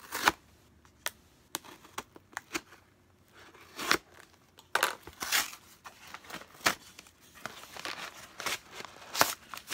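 Cardboard shipping box being pulled open by hand: irregular sharp clicks and snaps with short tearing and crinkling scrapes of tape and cardboard.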